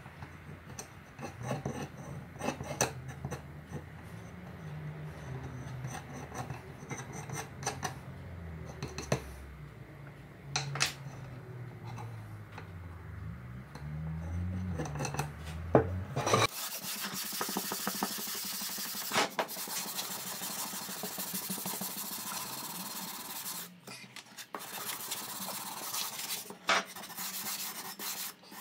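Small clicks and scrapes of a putty knife working wood filler into holes in timber, over a low hum. About halfway through this gives way to a louder, steady rasping: a hand sanding block rubbed back and forth over the wooden beam, with short pauses between strokes.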